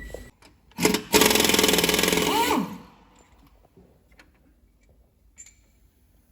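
Pneumatic impact wrench hammering on a fastener during engine teardown: a short blip, then a fast, loud rattle for about a second and a half that winds down with a falling pitch. A few faint metal clinks follow.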